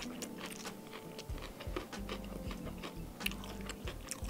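A person chewing a mouthful of spicy fried chicken close to the microphone: a steady run of small wet clicks and soft crunches with the jaw's low, rhythmic thud.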